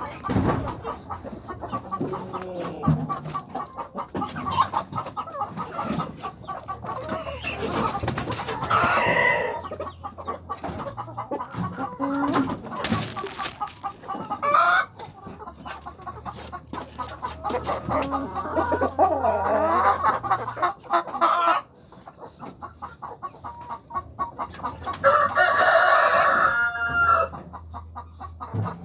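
A flock of hens clucking and calling almost without a break. A rooster crows once near the end with a long, loud call.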